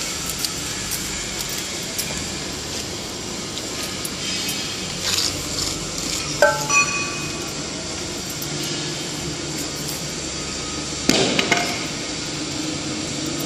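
Foundry shop-floor noise: a steady hum with scattered metallic knocks and clinks. A ringing metal clink comes about six and a half seconds in, and a louder clank cluster about eleven seconds in.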